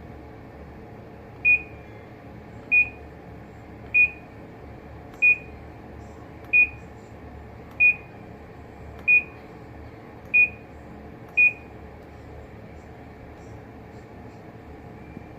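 Panasonic NA-F70S7 washing machine's electronic beeper sounding nine short, identical high beeps, about one every 1.25 seconds, over a faint steady hum.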